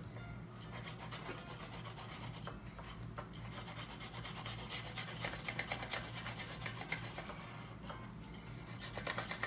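Marker pens scribbling on paper, an irregular scratchy rubbing of tips colouring in, over a faint low steady hum.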